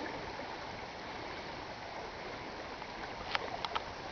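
Shallow, muddy flash-flood water running steadily down a gravel desert wash and across a dirt road, with a few short clicks near the end.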